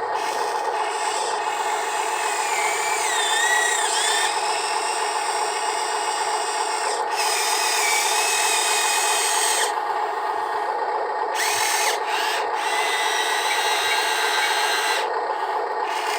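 Small electric motors and plastic gearboxes of a Huina radio-controlled construction machine, working while loading sand, with a steady rasping scrape. A motor whine rises and falls in pitch a few seconds in, and a higher gear hiss starts and stops several times as the controls are worked.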